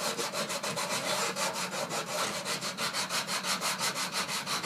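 Sanding square rubbed quickly back and forth over embossed cardstock, a fast, even scratching of about six or seven strokes a second. It sands down the raised embossing of dual-layered cardstock to show its second colour.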